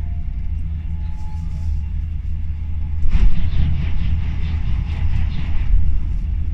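Steady low rumble inside a Class 390 Pendolino electric train running at high speed. About three seconds in a train on the next track passes the other way, bringing a sudden louder rush of air and wheel noise that lasts about two and a half seconds and then eases off.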